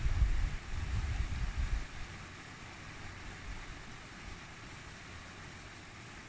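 Mountain stream rushing over rocks, a steady hiss of running water. For the first two seconds wind buffets the microphone in low gusty rumbles, which then die away and leave the stream alone.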